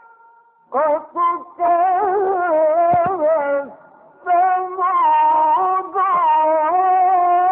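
A solo voice chanting Quran recitation (tilawa) in the ornamented Egyptian mujawwad style. After a brief silence come two long melismatic phrases, their pitch wavering and sliding, with a short breath pause between them.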